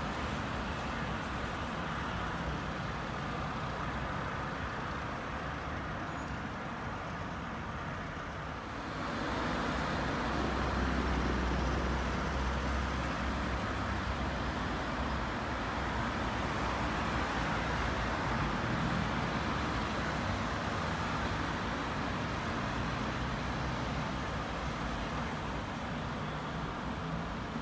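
City road traffic: a steady wash of passing cars. About nine seconds in it grows louder, with a low rumble for a few seconds, and then keeps going at the higher level.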